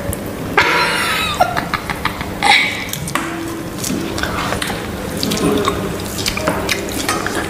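Close-up wet eating sounds: hands squishing rice into curry and mouths chewing, with many small clicks and smacks.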